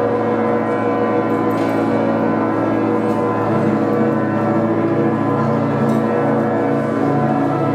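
Church bells ringing continuously in a dense festive peal, many bell tones overlapping without a break.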